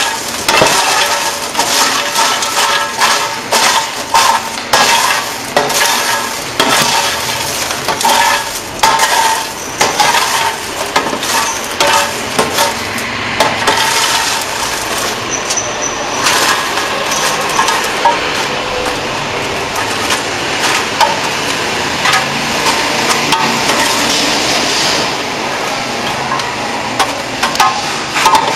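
Clear plastic popcorn scoop scraping and clicking across a perforated stainless-steel popcorn-machine tray, with popped popcorn rustling as it is scooped. Sharp clicks and scrapes in the first half give way to steadier scraping later.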